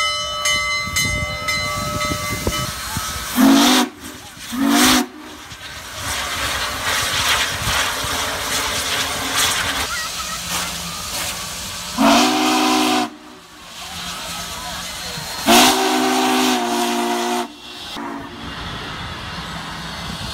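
Union Pacific No. 844, a 4-8-4 steam locomotive, passing close by. Its bell rings for the first couple of seconds, then its steam whistle gives two short blasts and later two longer blasts, over a steady hiss of steam and the rumble of the moving engine.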